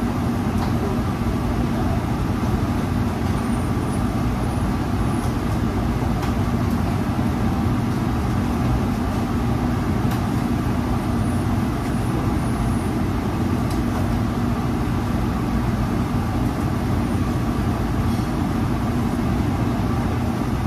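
Commercial kitchen exhaust hood fan running steadily, a constant rushing noise with a low hum, with a few faint clicks now and then.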